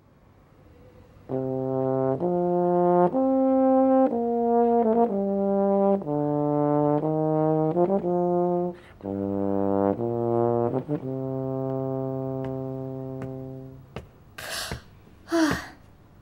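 A solo low brass instrument playing a slow melody of about a dozen held notes, ending on a long note that fades away. A few short sharp noises follow near the end.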